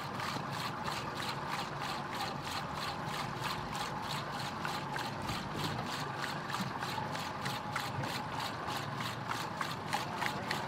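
Fishing reel's ratchet clicking steadily, about four clicks a second, as a jig is sent down on the line to fish 150 to 200 feet deep.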